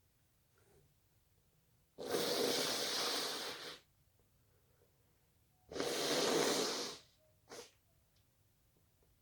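A person with the sniffles breathing out hard twice, each a long noisy rush of air lasting a second or two, then one short sniff.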